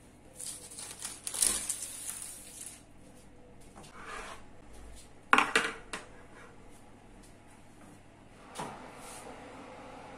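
Wire oven rack clattering and rubbing as it is handled, with one sharp metallic clank about five seconds in as it is set down on the worktop and a lighter knock near the end.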